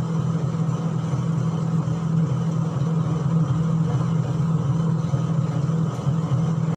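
A steady low mechanical drone with a hiss above it, cutting off abruptly near the end.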